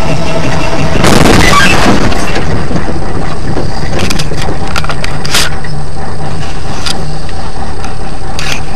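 Truck engine running steadily, heard from inside the cab. About a second in comes a loud rushing, crackling burst lasting about a second, and a few sharp clicks or knocks come later.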